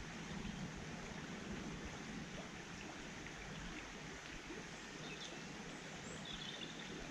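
Steady rush of river water, with breeze on the microphone. A faint bird call sounds about five to six seconds in.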